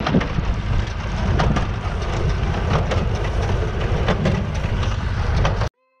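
Renault 651-2 tractor engine running with a New Holland 68 small square baler working behind it, the baler's mechanism clattering with frequent knocks over the engine. The sound cuts off suddenly just before the end.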